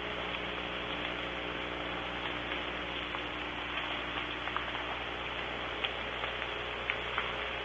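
Soft rain falling, a steady hiss with scattered faint drop ticks, heard through a nest-box camera's microphone with a low steady hum beneath.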